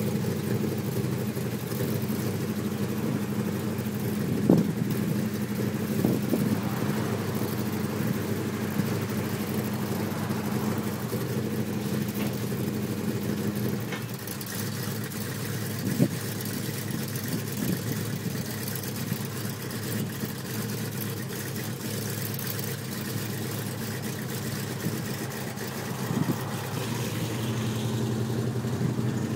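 1968 Dodge Charger R/T's V8 idling through its exhaust with a steady, even note and a few short sharp blips, running on a carburettor that the owner says badly needs replacing. About halfway through the note shifts and gets a little quieter, and it grows louder again near the end.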